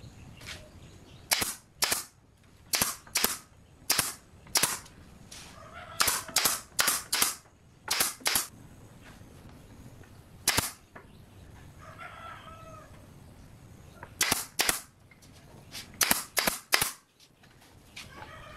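Pneumatic nail gun firing into pine pallet slats: about nineteen sharp shots, mostly in quick pairs, with a long pause in the middle.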